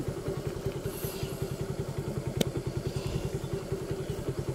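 Motorcycle engine running steadily with a fast, even putter, and one sharp click about two and a half seconds in.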